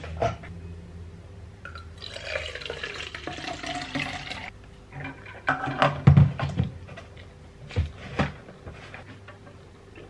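Water pouring from a stainless steel electric kettle into a plastic tumbler for about two and a half seconds, then a few knocks and clunks as the kettle and cup are handled and set down.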